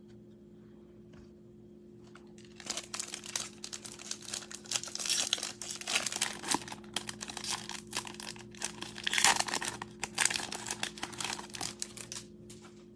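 Foil wrapper of a Bowman baseball card pack being torn open and crinkled in the hands. The crackling starts about two and a half seconds in and goes on in quick bursts until shortly before the end.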